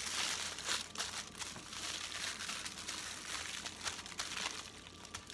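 Aluminium foil crinkling and crackling as it is wrapped and pressed tight around a sandwich to squeeze the air out.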